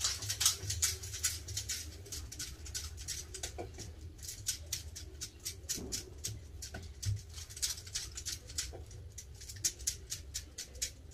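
Hands patting and slapping a ball of roti dough flat: quick sharp pats, about four a second, with a steady low hum underneath.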